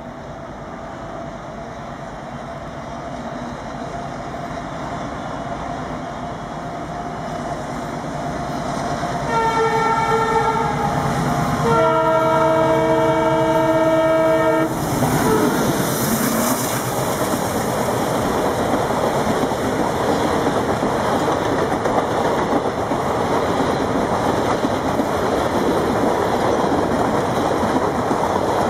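WDG-3A diesel locomotive's ALCO engine chugging under load on an upgrade, growing steadily louder as it approaches. About nine seconds in come two multi-tone horn blasts, a short one and then a longer one. After that the loud rumble and wheel clatter of the passing train takes over.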